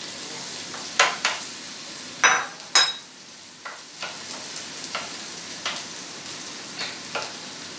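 Shrimp frying in oil in a frying pan, a steady sizzle, stirred with a wooden spoon. A few sharp knocks and clinks come about one to three seconds in as the plate is scraped and set aside, then lighter scrapes and taps of the spoon against the pan.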